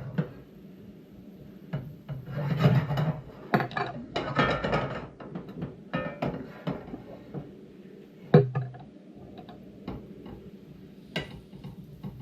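A cooking utensil scraping and stirring sausage in a frying pan, in several rasping strokes, with a few sharp knocks against the pan.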